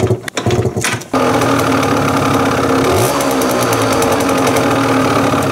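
Derbi Senda 50 cc two-stroke single-cylinder moped engine kicked over and catching about a second in, then running steadily with a brief blip of the throttle about three seconds in. This is the first start after a new intake hose to the carburettor has been fitted.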